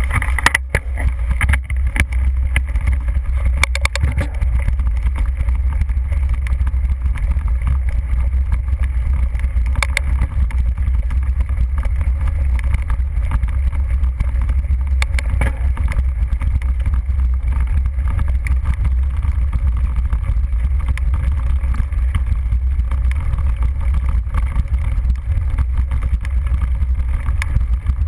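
Steady low rumble of a mountain bike rolling over grass, picked up by a handlebar-mounted action camera: wind buffeting and frame vibration on the microphone, with a few sharp knocks from bumps.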